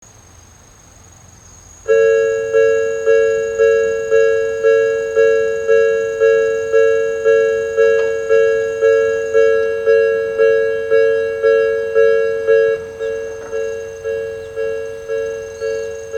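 Japanese level-crossing warning alarm with the electronic Odakyu-type bell tone, starting about two seconds in and striking about twice a second, each ding dying away, signalling an approaching train. Near the end it carries on noticeably quieter.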